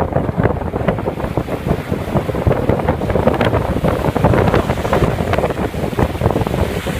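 Strong wind buffeting the microphone: a loud, steady rumble full of rapid crackling flutter.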